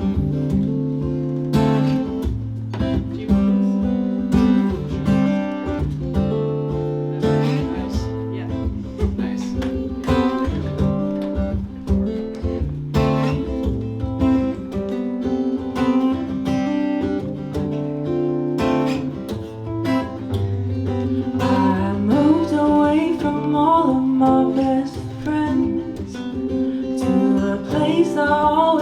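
Acoustic guitar strumming over long low cello notes in a song's instrumental intro. About two-thirds of the way through, a wavering melody line joins in above.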